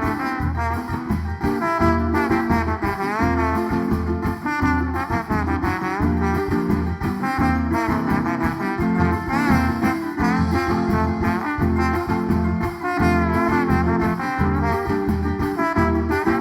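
Band playing an instrumental passage with no singing: a lead melody line over bass and a steady beat.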